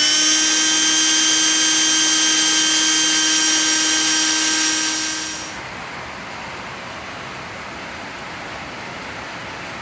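Electric drill spinning at a steady high speed with a bit boring into the truck's painted steel frame, its whine stopping abruptly about five and a half seconds in. A steady, quieter rushing noise follows.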